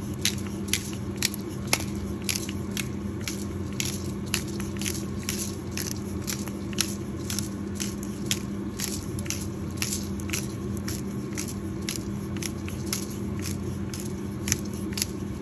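Pepper grinder being turned over the food, crunching peppercorns: a steady series of sharp, crackly clicks, about two a second.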